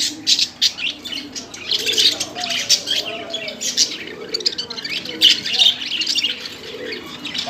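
Budgerigars chattering: a continuous stream of rapid high chirps and squawks with lower warbling notes.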